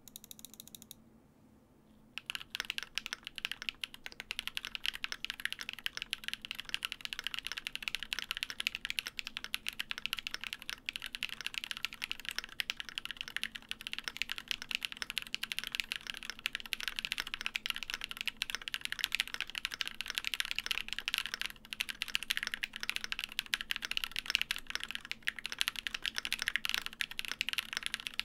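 Continuous fast typing on a gasket-mounted D65 custom mechanical keyboard with Durock POM switches on a polycarbonate plate, damped with case and plate foam. The keystrokes start about two seconds in and run on densely, with a short lull about three-quarters of the way through.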